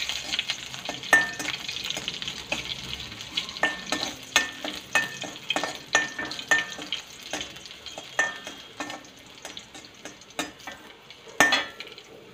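Crushed garlic and mustard seeds sizzling in hot oil in a kadai, stirred with a perforated steel ladle. The ladle scrapes and clinks irregularly against the pan, and some strikes ring briefly.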